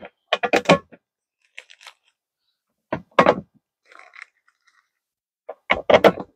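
Crunching and crinkling handling noise in three short bursts as plastic parts and packaging are handled during assembly of a plastic compost tumbler, with faint rustling between the bursts.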